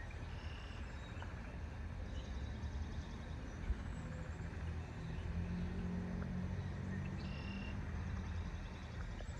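Outdoor ambience: a steady low rumble, with a hum that swells in the middle, under short high chirps and trills of small birds calling now and then.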